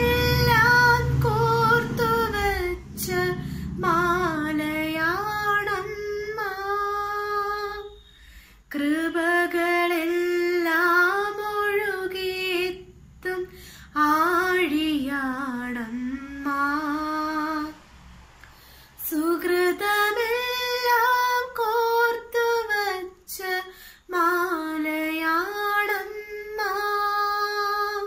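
A young woman singing a Malayalam Marian hymn solo, in long held phrases with short breaths and pauses between them.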